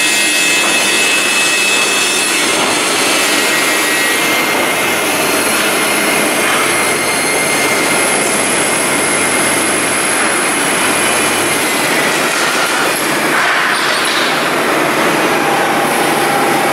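MgO board production line machinery running: a loud, steady mechanical noise with a few faint high whines, changing slightly about twelve seconds in.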